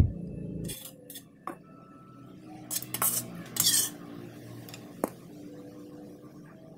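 Metal spoon clinking and scraping on a plate of rice, a handful of light clinks with the loudest two about three seconds in.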